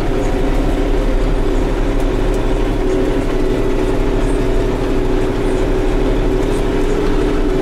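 Farm tractor's diesel engine running steadily at a constant pitch, heard from inside the tractor cab as it drives across the field.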